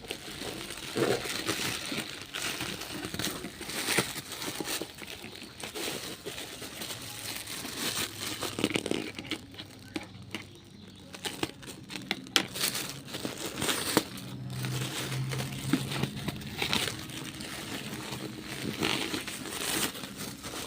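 Toy packaging crinkling and rustling as it is handled and unwrapped, with irregular sharp crackles throughout.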